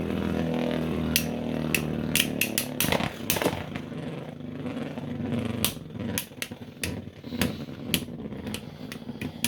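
3D-printed Beyblade spinning tops whirring in a stadium for about three seconds, then a run of sharp clacks as the tops collide with each other and strike the stadium walls.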